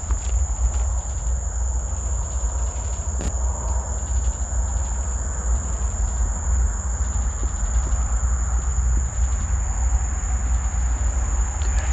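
A steady, unbroken high-pitched whine over a constant low rumble, the strange sound the listeners cannot identify.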